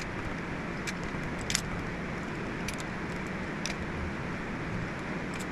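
Steady fan-like noise of the shop, with a few sharp metallic clicks from hand tools on the rocker arm bolts of an International Harvester D-179 diesel engine.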